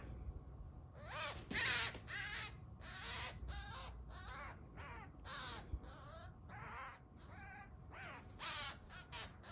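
Eurasian magpie pinned down by a Eurasian sparrowhawk, giving repeated harsh distress calls, about two a second, loudest about two seconds in.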